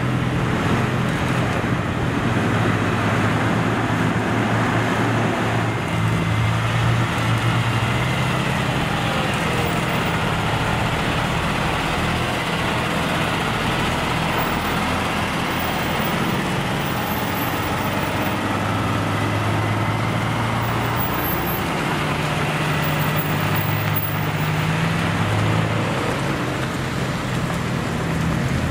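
Heavy diesel truck engines running steadily at low speed as a slow convoy drives past, led by a Kenworth prime mover pulling a float trailer, with tyre and road noise. The engine note swells twice as vehicles come closest, about a quarter of the way in and again past the middle.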